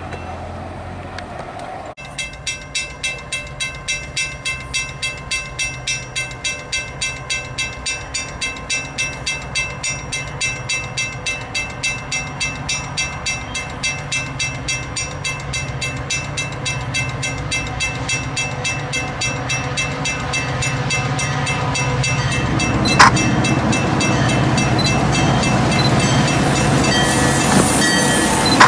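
Railroad grade crossing bell ringing steadily, about two strikes a second. From about two-thirds of the way through, a Metra commuter train's diesel locomotive and rail noise build up louder as the train arrives and passes close, with one sharp click along the way.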